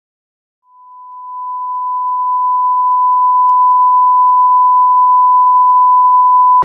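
A steady 1 kHz test tone, the broadcast reference tone that goes with a TV test card. It fades in about a second in, grows louder over the next couple of seconds, holds level, and cuts off suddenly.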